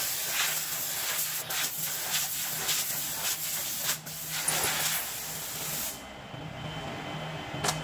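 A loud, rushing hiss of air that surges in uneven pulses and cuts off suddenly about six seconds in, followed by a single sharp click near the end.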